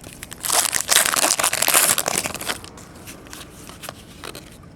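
Crinkling of a trading-card pack's wrapper being handled for about two seconds, followed by a few light clicks of cards being handled.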